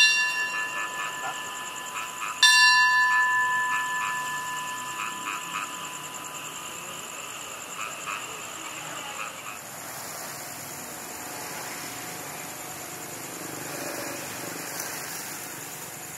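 A railway station bell struck twice, once just before and once about two and a half seconds in. Each strike is a bright clang that rings on and fades over a few seconds. Under it runs a steady, high insect chirring that goes on after the ringing has died away.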